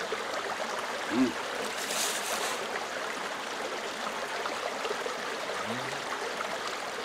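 Steady rushing of a small creek's flowing water. A brief hum of a voice comes about a second in, with a fainter one near the end.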